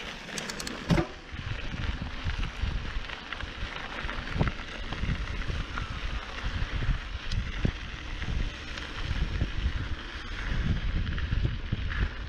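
Mountain bike riding over a dry dirt and gravel trail: tyres crunching over the ground, knocks and rattles from the bike, and wind buffeting the microphone. A sharp knock about a second in.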